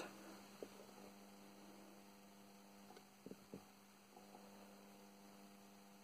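Near silence: a faint steady electrical hum, with a few faint ticks.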